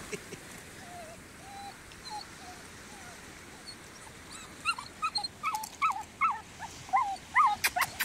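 Cane corso puppy whimpering. Faint whines at first, then from about halfway a run of short, high-pitched whines, about two a second, growing louder.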